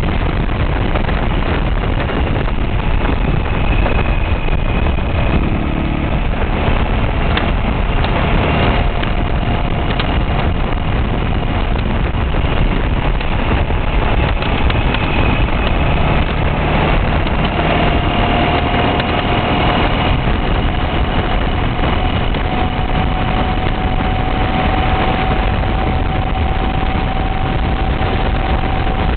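Ural sidecar motorcycle's flat-twin engine running while riding along a street, heard under steady road and wind noise, with a faint whine that rises slightly about halfway through.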